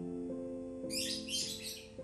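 Soft piano background music with held notes. About a second in, a small bird chirps a quick run of high notes over it.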